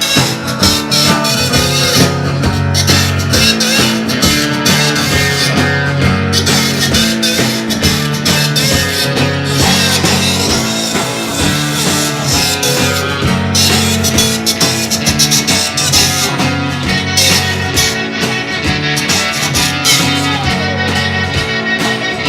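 Live rock band playing an instrumental passage, with electric guitar, a steady bass line and drums, and no singing.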